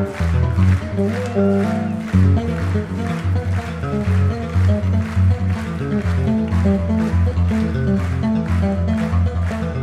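Electric bass guitar played solo live: moving low bass notes under higher melodic notes, with an even, quick pulse of sharp note attacks, about three or four a second.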